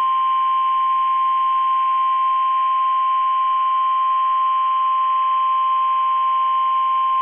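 NOAA Weather Radio warning alarm tone: a single steady 1050 Hz tone, loud and unbroken, the alert signal that comes before a tornado warning is read out.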